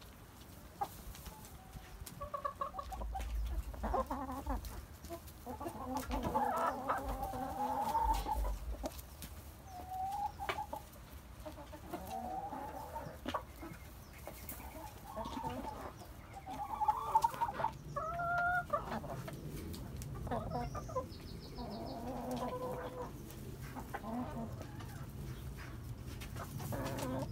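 Chickens clucking: a string of short, pitched hen calls scattered throughout, with a louder, higher call about seventeen seconds in.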